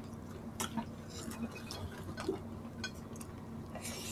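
Faint, scattered clicks and smacks of people eating by hand: chewing, lip smacks and food being handled on the table, over a faint steady hum.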